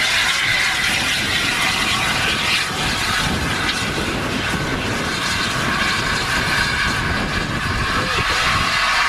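BR Standard Class 8 Pacific steam locomotive 71000 Duke of Gloucester moving slowly away, with a loud, steady hiss and no clear exhaust beat.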